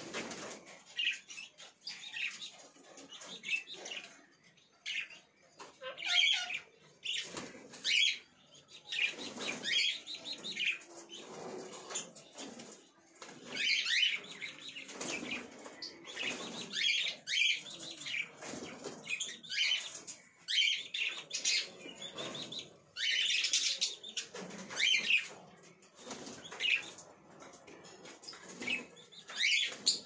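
Indian ringneck parakeets flapping and fluttering in wire aviary cages, in repeated irregular bursts of wingbeats, mixed with short sharp squawks and chirps.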